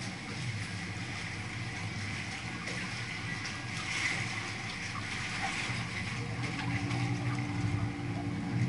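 Canal tour boat's engine running steadily under way, with water washing along the hull. A steady higher hum joins in near the end.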